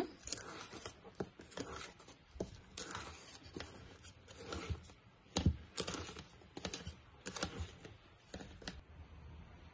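Plastic spatula scraping and knocking against the side of a mixing bowl while folding flour into an egg yolk batter: soft, irregular clicks and scrapes, one or two a second.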